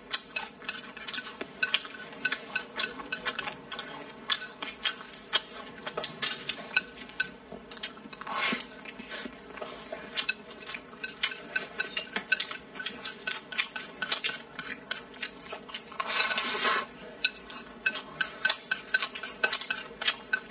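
Wooden chopsticks clicking and scraping against a bowl as rice is stirred and shovelled in, in quick irregular clicks. Two longer noisy sounds come about eight and sixteen seconds in.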